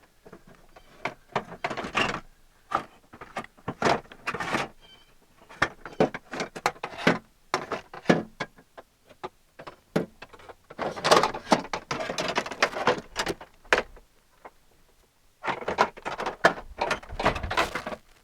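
Clicks, knocks and scraping of a window regulator assembly and clips being handled and fitted inside a car door, with two longer bursts of scraping and rattling, the first about 11 seconds in and the second near the end.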